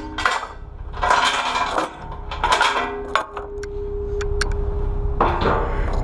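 Steel tie-down chains clinking and rattling against each other and the trailer's wooden deck as they are handled. Near the end there is a denser metal clatter as the trailer's steel ramp is taken hold of.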